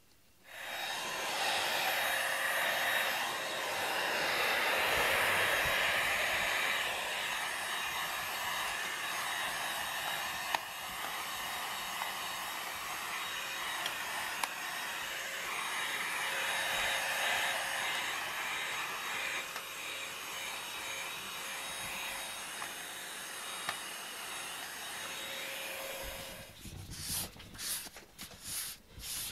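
Cordless stick vacuum cleaner running steadily with a constant hum as it sucks cat hair off a foam floor mat, then switching off near the end. After it stops, a hand-held pad is rubbed back and forth over the mat in quick strokes.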